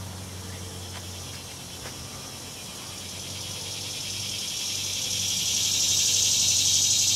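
Insects shrilling outdoors in a high, fast-pulsing buzz that swells louder from about halfway through, over a steady low hum.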